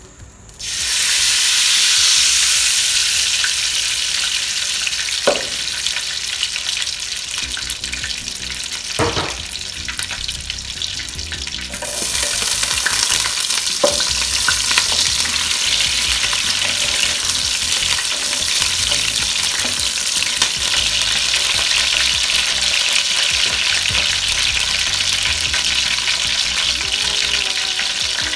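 Red palm oil sizzling in a hot cooking pot. The sizzle starts suddenly about a second in, jumps louder again about twelve seconds in and then stays steady, with a few light knocks in between.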